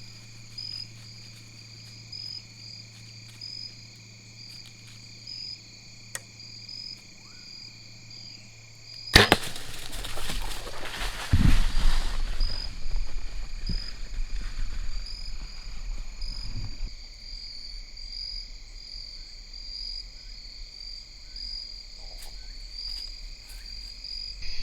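A compound bow fired about nine seconds in: a sharp crack of the string and arrow, followed by a few seconds of loud rustling and a heavy thump. Crickets trill steadily throughout.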